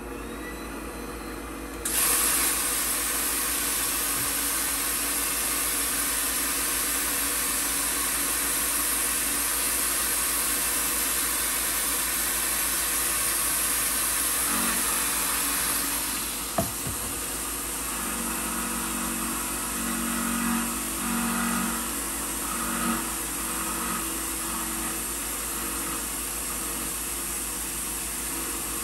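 Super Prolight 1000 CNC mill's spindle running while an end mill cuts the holding tabs off aluminium blocks under jog-wheel control. A steady air-blast hiss from the coolant nozzle switches on about two seconds in. Past the middle there is a sharp click, then a series of short whirring pulses as the axis is jogged in steps.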